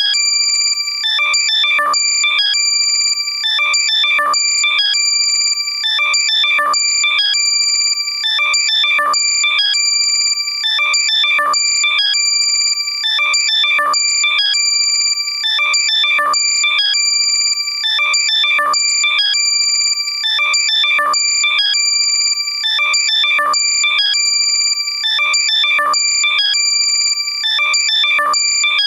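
Loud, compressed electronic alert tone for locating lost AirPods: steady high-pitched tones under a chirping pattern that repeats about every two and a half seconds.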